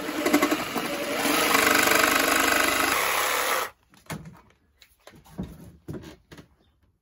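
Makita 18V cordless jigsaw cutting a curve through a wood-effect board, running steadily for about three and a half seconds and then stopping suddenly. A few light knocks follow.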